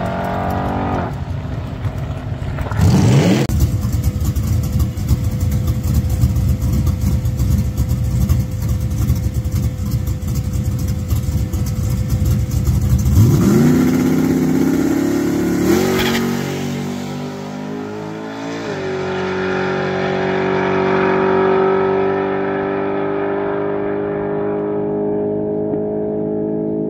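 Small-block Chevy V8 Malibu drag car. It does a long, loud burnout with tyre noise, then revs up at the line. About three seconds later it launches and pulls down the strip through the gears, and the engine note holds steady and slowly rises before it backs off near the end. A distant engine's pitch falls away in the first second.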